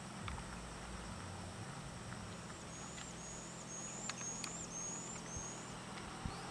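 Roadside ambience: a bird calls a run of six short, high whistled notes, about two a second, in the middle, over a low steady hum.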